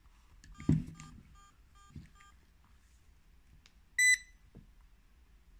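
A switch click, then a quick run of faint short electronic beeps, then about four seconds in one loud short electronic beep as the Nokta Makro Pulsedive pinpointer powers up.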